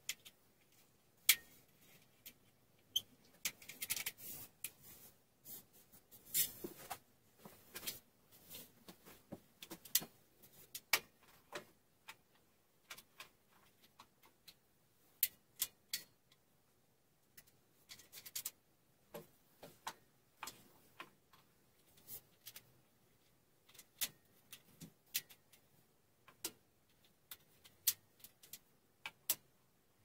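Metal bar clamps being handled and tightened on an MDF cabinet: irregular sharp clicks and knocks of metal on metal and on board, with a couple of brief scraping rustles about four and six and a half seconds in.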